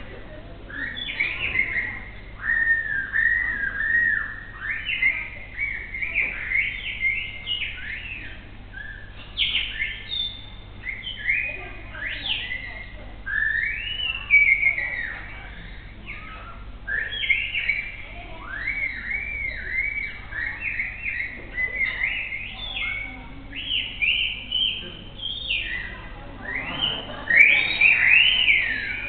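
A performer imitating birdsong with his mouth, whistling a quick, varied run of chirps and arching up-and-down warbles in short phrases. It is bird-like enough that listeners may take it for real birds.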